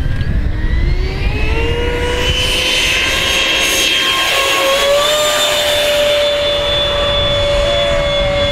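Electric ducted fan of a Jet Arrows Vampire model jet (Wemotec Midifan driven by a Mega brushless motor) whining at takeoff power. Its pitch rises over the first couple of seconds as the throttle comes up on the takeoff roll, then holds a steady high whine as the model lifts off and climbs away.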